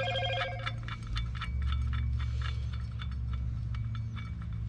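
Small metal clicks and clinks as the castle nut is turned off the propeller shaft of a 6 hp four-stroke outboard by hand. A steady tone sounds briefly at the start, and a low hum runs underneath.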